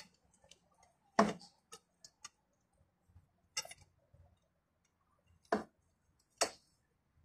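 Sharp metallic clicks and clinks of hand tools working on the timing end of a VW 2.0 FSI engine. Four louder clicks come one to two seconds apart, with fainter ticks between them.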